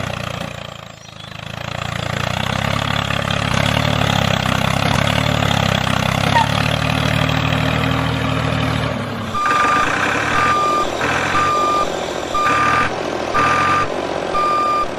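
Vehicle engine running steadily. About nine seconds in it cuts out and a reversing alarm beeps over and over, roughly once a second.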